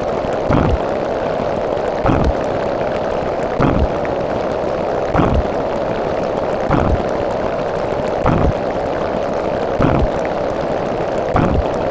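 A steady rushing noise with a low thump about every second and a half, eight thumps in all.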